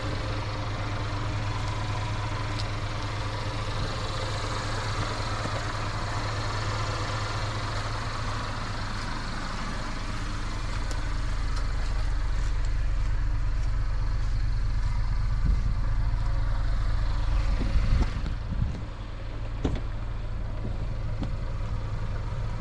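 Infiniti QX30 engine idling steadily, with a constant low hum. A few knocks and handling noises come about fifteen to nineteen seconds in.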